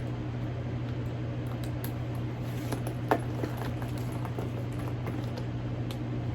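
Light rustling and small clicks as a handbag and its packaging are handled, with one sharper click about three seconds in, over a steady low background hum.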